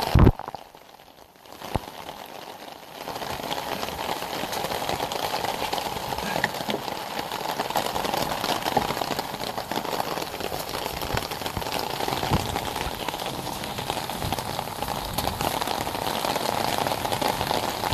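A single sharp knock as a lid is shut, then steady heavy rain falling, which grows louder about three seconds in and holds.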